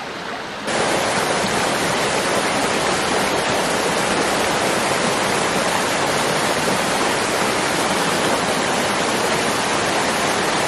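Small mountain creek: water running over rocks, then, about a second in, a small waterfall cascading over logs and boulders, a louder steady rush of water.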